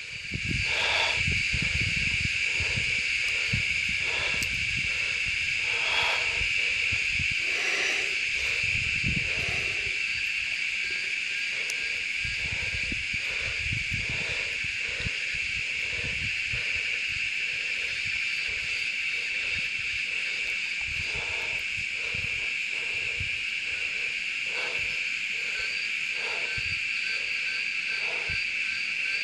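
A steady, high-pitched insect drone throughout, with fainter lower calls repeating every second or two and occasional low rumbles, mostly in the first half.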